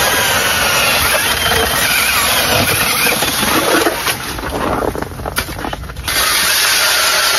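Cordless drill-powered ice auger boring through lake ice, its motor running steadily under load for about four seconds. The auger is then pulled up through the hole, and the sound drops and grows uneven for about two seconds before a steady loud noise returns.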